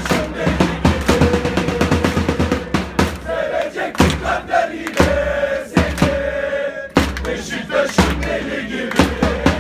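A crowd of football supporters singing a terrace chant together, with hand claps and a drum keeping a beat about once a second.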